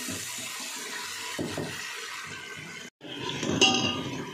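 Masala frying in an aluminium pressure cooker as a steel ladle stirs it, with a steady hiss. The sound cuts out for a moment about three seconds in, then comes back louder with a short ringing clink of the ladle against the pot.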